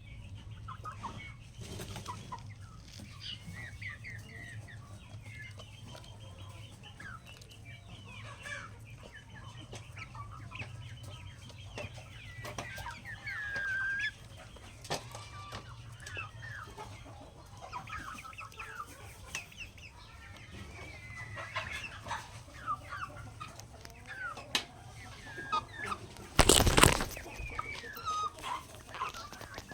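Chickens clucking with many short, high chirping calls throughout, fitting adult hens together with peeping chicks, over a steady low hum. Near the end comes one loud, brief noisy burst.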